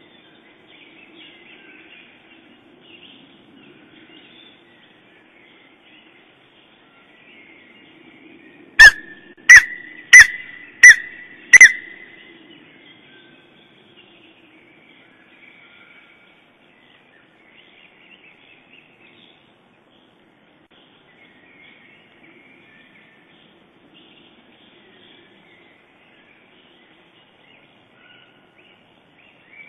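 Lesser spotted eagle calling close by: a series of five loud, high yelping notes, evenly spaced about two-thirds of a second apart, about nine seconds in. Faint songbirds sing in the background.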